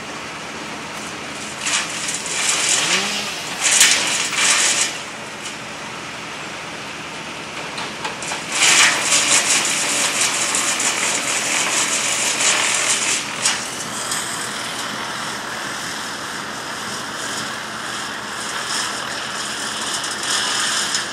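Tree-cutting work: a steady engine running under loud bursts of crackling, rustling noise, one from about two to five seconds in and another from about eight to thirteen seconds in.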